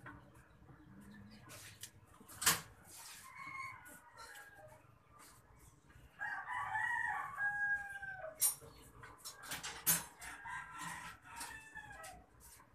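A rooster crows once for about two seconds in the middle, the call falling away at its end, with softer bird calls before and after. A few sharp clicks, the loudest about two and a half seconds in.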